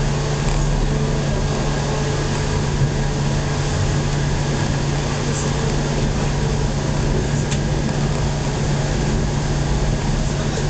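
Cabin noise of a JR-West local electric train on the Hokuriku Main Line running along: a steady hum under a constant rumble of wheels on rail, with a couple of faint clicks.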